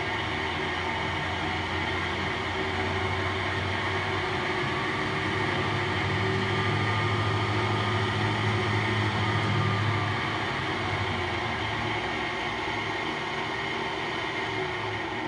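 Clausing 8540 horizontal milling machine running under power, a steady mechanical hum from its spindle drive as the variable speed is brought up. A low hum grows stronger from about six seconds in and drops away at about ten seconds.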